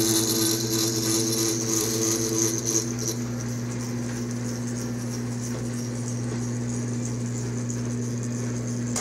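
Milling machine running a slitting saw through a metal tube clamped in a vise, slotting the tube. A high cutting hiss over the steady motor hum fades about three seconds in, leaving the machine running steadily.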